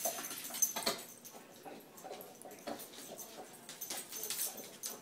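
Two dogs play-fighting, with short whimpering noises and scuffling, and scattered clicks from their feet on a wooden floor.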